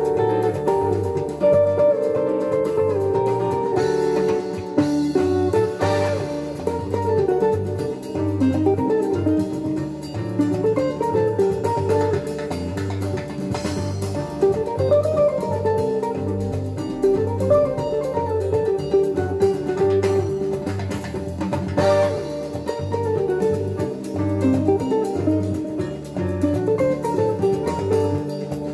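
Guitar music with a steady, repeating bass line and light drums, played back from a Sansui CD-V350 CD player through a Pioneer A-301 amplifier and its loudspeakers.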